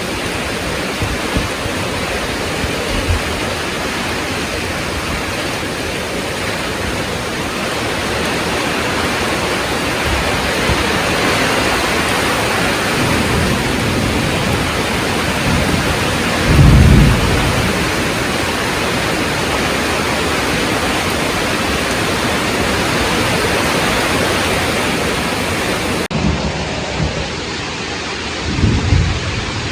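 Heavy rain pouring steadily. A short, low rumble of thunder comes about halfway through and is the loudest sound, with a smaller rumble near the end.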